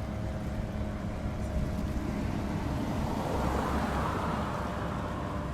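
A car driving past, its road noise swelling and fading about three seconds in, over a steady low hum.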